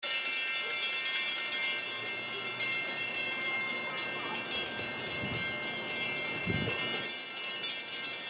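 Approaching train: a steady chord of high tones held throughout, with two short low thumps about five and six and a half seconds in.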